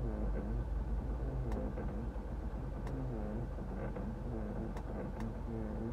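Mazda 3 climate control with its temperature knob turned up, giving sharp clicks. Over the steady hum of the running engine and ventilation fan, a sound from the climate unit rises and falls in pitch again and again, roughly once a second.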